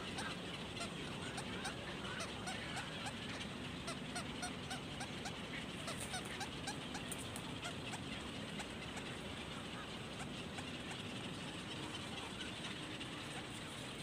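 Many birds calling at once, a dense run of short calls, over a steady background hiss.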